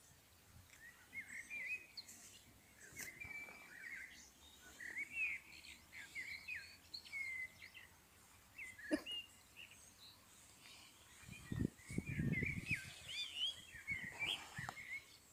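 Small birds chirping and twittering in short phrases throughout, with two sharp clicks and, about twelve seconds in, a low rushing noise lasting a second or so that is the loudest sound.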